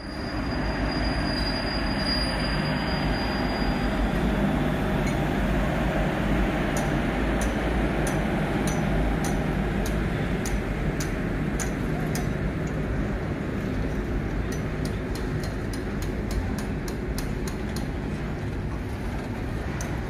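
Indian Railways electric freight locomotive and loaded flat wagons rolling slowly past, a steady rumble and hiss. From about seven seconds in, sharp wheel clicks over the rail joints come more and more often as the wagons go by.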